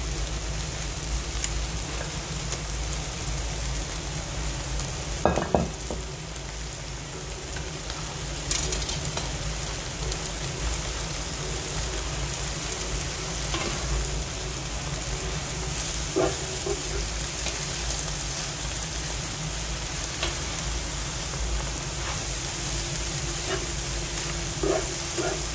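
Noodles and shredded vegetables sizzling in a non-stick wok while being stirred and tossed with a slotted spatula. A steady frying hiss runs under scattered clicks and scrapes of the spatula on the pan. There is a sharp, louder knock about five seconds in.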